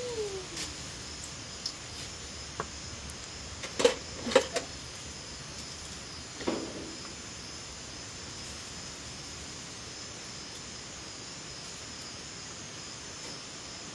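Steady high-pitched chirring of night insects such as crickets. A few sharp knocks and clicks come about four seconds in, with one more a couple of seconds later.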